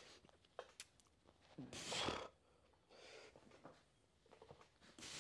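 Faint, effortful breathing of a man doing incline dumbbell presses: a hard exhale with a short grunt about two seconds in, a softer breath a second later, and another sharp exhale near the end.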